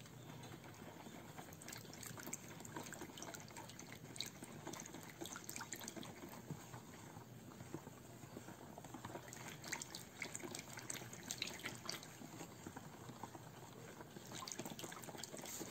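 Yellow plastic whisk stirring melted butter into ground almonds in a plastic bowl: faint, irregular liquid sloshing with small clicks of the whisk.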